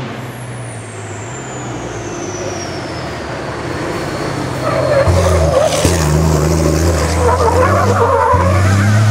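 MAN race truck's diesel engine running hard as the truck climbs, getting louder from about halfway through as it comes close, with tyres squealing as it slides through the bend. A high whine falls slowly in pitch over the first four seconds.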